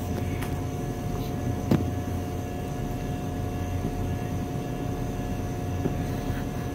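Steady background hum with a few held tones, and a few sharp clicks from the camera being handled and moved; the sharpest click comes a little under two seconds in.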